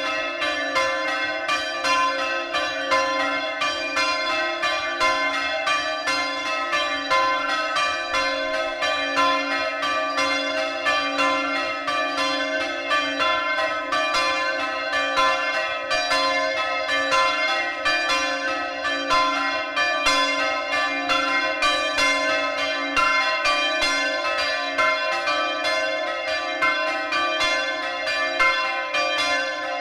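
A ring of three Mears church bells, tenor about 231 kg in C, being rung full-circle. The strikes follow each other in a steady, even stream, loud and unbroken throughout.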